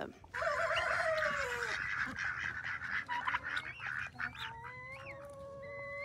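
A mixed flock of poultry calling. There is a burst of overlapping calls with one falling call in the first couple of seconds, then a few short calls, then a single long held call starting about four and a half seconds in.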